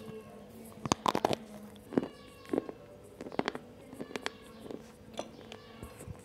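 Slate pencil being bitten and chewed close to the microphone: sharp, irregular crunches, about a dozen, often two or three in quick succession.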